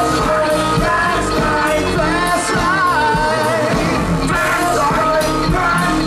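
Live funk band playing, with sung vocal lines over electric guitar, bass and drums.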